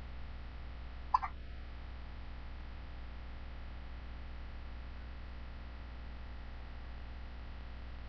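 A sleeping newborn baby hiccups once about a second in: a single short, sharp, squeaky hic over a steady low hum.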